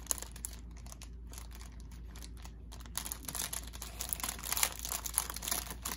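Clear plastic packaging bags around new phone cases crinkling as they are handled and pressed, in irregular rustles that get busier about halfway through.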